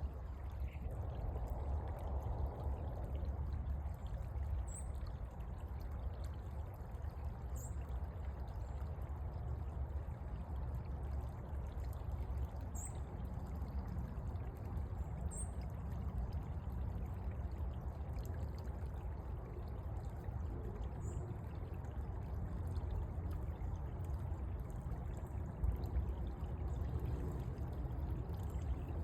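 Small woodland creek flowing steadily, its water pouring and trickling over the streambed.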